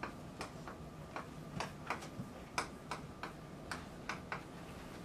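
Chalk tapping and scratching on a blackboard as words are written by hand: an uneven run of short, sharp clicks, about one every third of a second.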